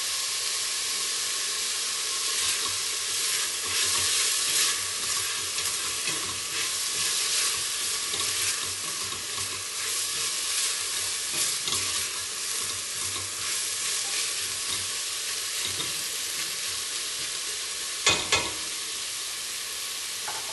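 Diced onions sizzling in hot oil in a stainless steel stockpot, softening as they fry. A spatula stirs and scrapes them across the pot for the first half or so, and there are two sharp knocks close together near the end.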